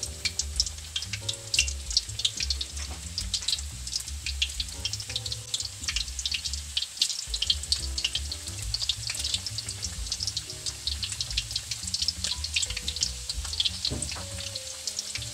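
Slices of tindok, a giant cooking banana, deep-frying in hot oil in a steel wok: a steady sizzle with many small crackling pops.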